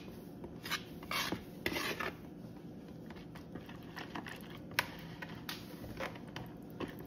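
A whisk scraping dry cake mix (flour, sugar, cocoa) out of one mixing bowl into a bowl of red velvet batter, then starting to fold it in: soft rubbing and a few raspy scrapes in the first two seconds, then fainter scratching with an occasional click.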